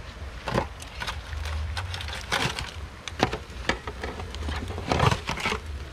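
An irregular string of sharp knocks and clatters from cooking utensils and pots, the fried fish being lifted out of the hot oil and set down in a pan.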